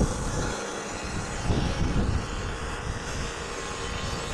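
Norwood Lumberlite ML26 portable bandsaw mill running steadily, its band blade sawing into an ash log as the head is pushed along.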